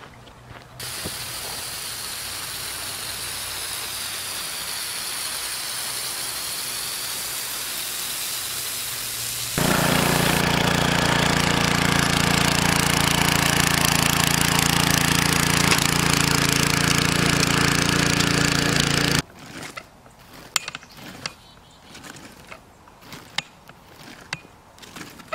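A small gasoline engine on a rear-tine garden tiller running steadily while tilling a row, loudest from about ten seconds in until it cuts off abruptly a little past halfway. Before it there is a steady hiss, and after it scattered soft knocks of a hoe working the soil.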